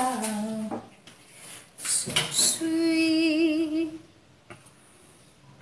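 A woman singing softly to herself: a drawn-out sung phrase that ends under a second in, then after a short breathy hiss one long held note with a wavering vibrato about two and a half seconds in.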